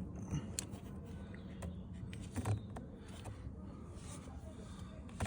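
Faint, scattered clicks and light taps from handling a car-door puddle light unit and a small screwdriver, over a low steady background hum.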